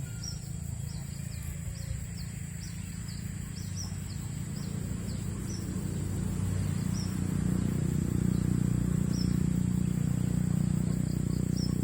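Rural outdoor ambience: a steady high insect drone and a bird's short, repeated chirps, about two a second at first and sparser later. Underneath, a low rumble grows louder from about halfway through.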